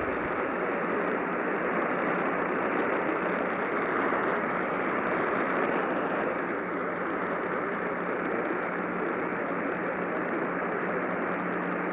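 AM radio receiver hissing with static while tuned to a weak, poorly received station, with a steady low hum underneath.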